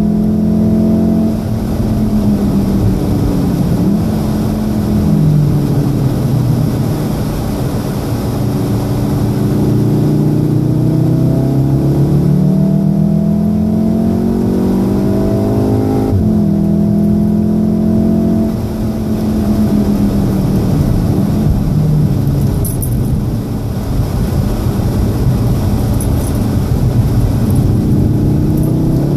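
2014 Volkswagen Golf VII R's turbocharged 2.0-litre four-cylinder engine heard from inside the cabin while being driven hard, its pitch climbing under throttle and dropping again several times as the driver lifts and brakes for corners.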